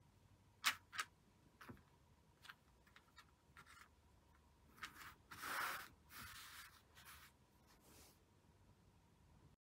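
Faint handling of tatted lace doilies on a flat surface: two light ticks about a second in, then scattered small scrapes and soft rubbing swishes as the lace is slid and smoothed, the longest swish about five to six seconds in.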